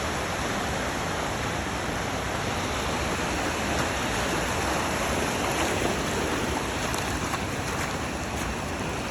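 Ocean surf rushing in over the rocky shore at high tide: a steady wash of breaking water that swells a little midway.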